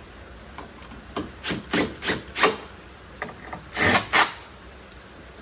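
A run of about eight short scraping strokes, each a fraction of a second long, with the loudest two near the end.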